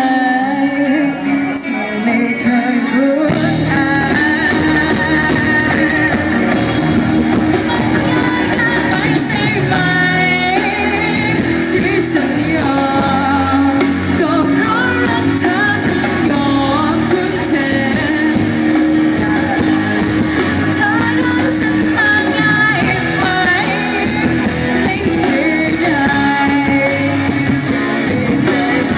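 Live rock band playing: electric guitar and a melody line over bass and drums, with the full band coming in about three seconds in.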